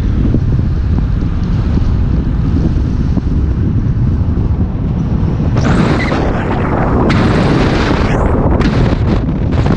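Wind buffeting the microphone of a camera on a moving vehicle, over a steady low road rumble. About halfway through the wind rush turns harsher and louder, breaking into short gusts near the end.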